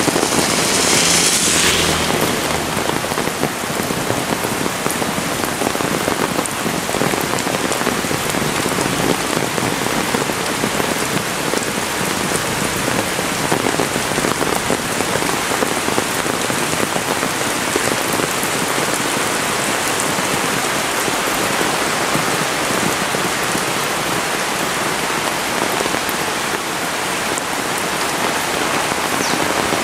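Heavy rain falling steadily with a dense, even hiss, a little louder and sharper for a second or two near the start.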